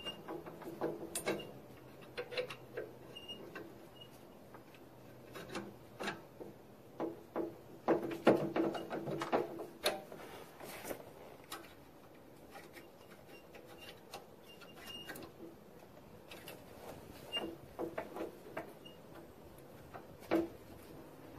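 Metal parts clinking and knocking as they are handled and fitted by hand into a garden tractor's lift assembly. The clicks come irregularly, busiest about eight to ten seconds in, with one sharper knock near the end.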